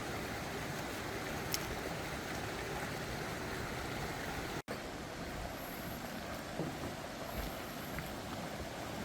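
Mountain stream rushing over rocks, a steady even rush of water, broken off for an instant about four and a half seconds in.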